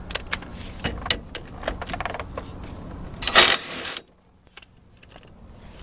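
Metal tools clicking and clinking against the axle flange, then a short, loud whirring burst about three seconds in from a power ratchet spinning one of the 9/16 axle retainer nuts off the backing plate studs.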